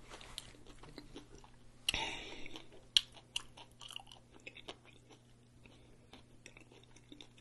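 Close-miked chewing of a tortilla chip with dip: soft, wet mouth clicks and smacks, with a sharper crunch about two seconds in and another about three seconds in.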